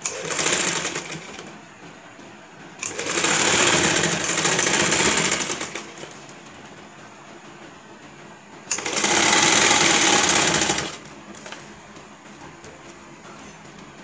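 Domestic straight-stitch sewing machine stitching lace onto net fabric in three short runs, the second and third the longest, with brief stops between them while the fabric is guided.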